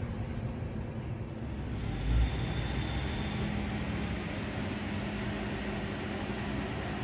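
Endeavour-class diesel railcar approaching under power, its diesel engine running with a steady low hum and a faint high whine that rises slowly over the last few seconds. A short low thump comes about two seconds in.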